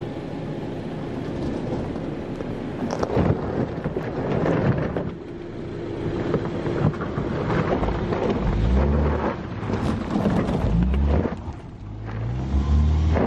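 Subaru Crosstrek driving up a rocky dirt slope: tyres crunching and scrabbling over loose gravel and stones. In the second half the engine revs up several times, its pitch rising about every two seconds.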